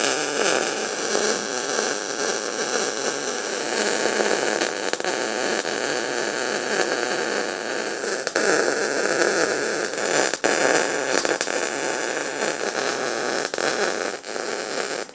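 Electric arc welding on the steel side panel of a welding cart: a steady hiss with scattered sharp clicks as a weld bead is laid to replace welds that were ground off, with a brief break a little past halfway.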